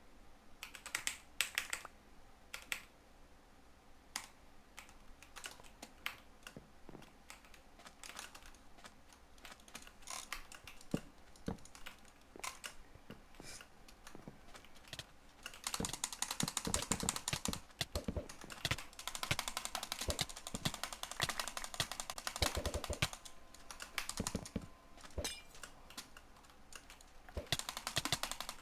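Computer keyboard keys being typed and clicked: scattered single key clicks for the first half, then fast, dense runs of typing from about halfway, easing off, then picking up again near the end.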